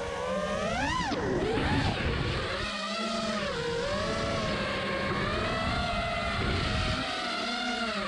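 Five-inch FPV racing quadcopter's Emax ECO II 2306 1700KV brushless motors and Gemfan Hurricane props whining, heard close up from the onboard camera. The pitch swoops up and down with the throttle and holds steadier for a few seconds in the middle.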